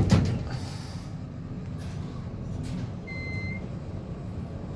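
1987 Otis traction elevator: the doors close with a knock at the start, then the car travels down with a steady low rumble. A single electronic beep sounds about three seconds in, as the car passes a floor.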